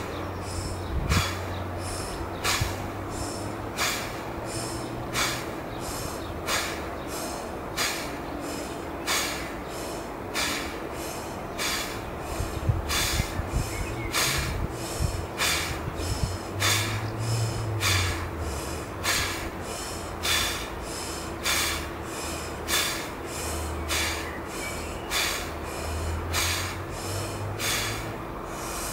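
A man breathing in and out hard through the side of his mouth, puffing one cheek, in a steady quick rhythm of short breaths, with a stronger breath a little more than once a second.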